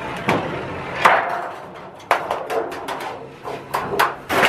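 Tape being peeled off a large sheet template and the sheet rustling and crackling as it is pulled apart and handled on a table: irregular sharp crackles, loudest about a second in and again near the end.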